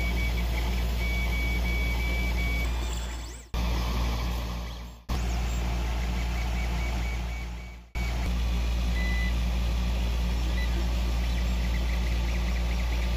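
Creality Ender 3D printer running a print: a steady hum from its fans and stepper motors, with thin high whining tones that come and go. The sound fades out and starts again suddenly three times, about 3.5, 5 and 8 seconds in.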